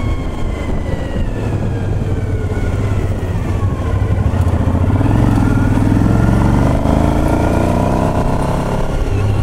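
Motorcycle engine running under way on the road, its pitch climbing between about five and nine seconds in as it speeds up.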